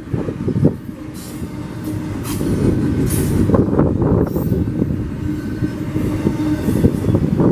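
CPKC train's cars rolling past with a steady rumble and scattered knocks, with a few brief high wheel squeals about three and four seconds in. Heavy wind noise on the microphone.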